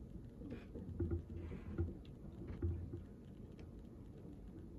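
Quiet room tone with faint rustling and a few soft, low bumps.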